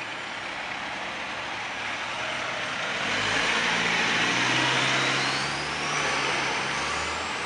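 Tractor-trailer concrete mixer truck driving along a street: its engine runs with a low steady note under a dense rush of road noise. A high whine rises in pitch from about three seconds in.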